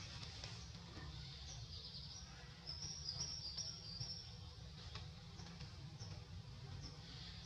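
Quiet woodland ambience: small birds chirping with short high notes, with a quick run of them about three seconds in, over a steady low background rumble.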